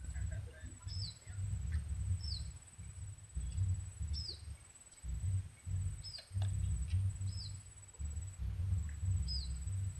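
A bird repeating a short, sharp call that slides down in pitch, about once a second, over a steady high-pitched insect drone. An irregular low rumble on the microphone comes and goes and is the loudest sound.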